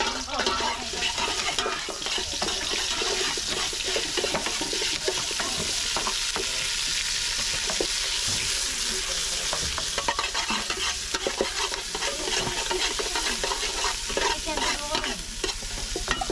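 Food frying in a pot with a steady sizzle, and a spoon knocking and scraping against the pot as it is stirred.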